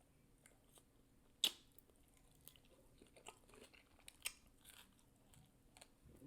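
Faint chewing and mouth noises, with a sharp crunch about a second and a half in and another near four seconds.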